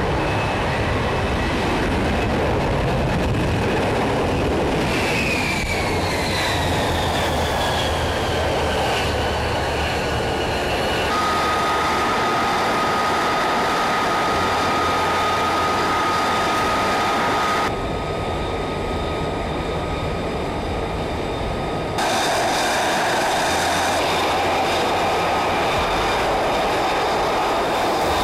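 F-35B Lightning II jet engine (Pratt & Whitney F135) running: a loud steady rush with a high whine that slides down in pitch over several seconds and then holds one steady tone. The sound changes abruptly twice, in the second half.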